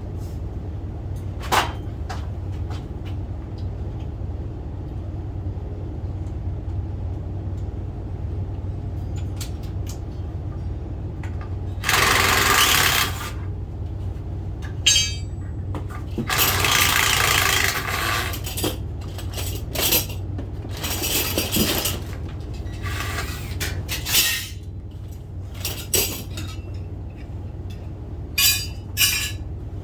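Hand tools at work on door framing: a pry bar clinking against metal and wood, with several short bursts of scraping and prying about a second long, over a steady low hum.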